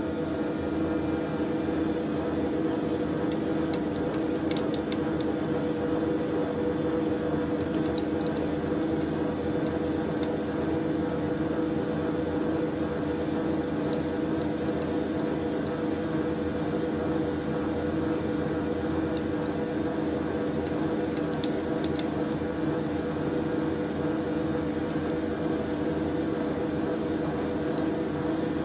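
Milling machine running with a steady hum and a few faint ticks as the cutter takes a light test cut along the workpiece to check centre alignment.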